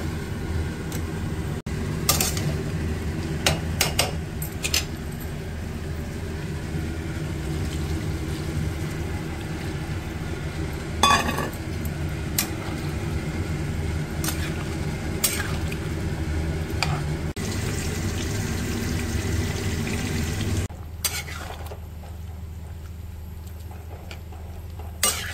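Flat metal spatula stirring and scraping jackfruit curry in a metal kadhai, with sharp clinks and scrapes against the pan over a steady sizzling hum of cooking on the gas stove. The steady sound drops in level about 21 seconds in, and a last clink comes near the end.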